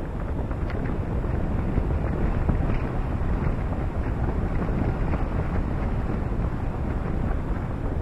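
Steady wind rushing over the microphone of a camera mounted on the outside of a moving car, with road noise from driving beneath it.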